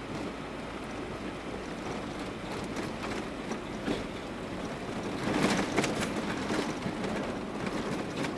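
Cab noise of a GAZelle van driving on a rutted, snow-packed road: steady engine and tyre noise, with bumps and rattling clatter growing louder from about five seconds in.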